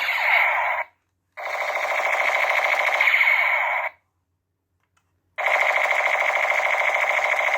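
Battery-powered toy gun's electronic rapid-fire sound effect, a fast buzzing rattle played in long bursts of a few seconds, each cutting off suddenly.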